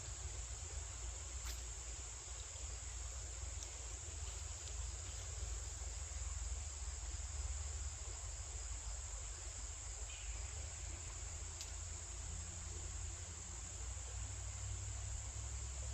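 Insects trilling steadily in one unbroken high-pitched chorus, over a low steady rumble, with a couple of faint clicks.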